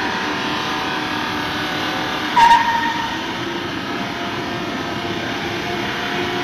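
Steady running of a vehicle or machine, with a sudden bang about two and a half seconds in that leaves a short ringing tone.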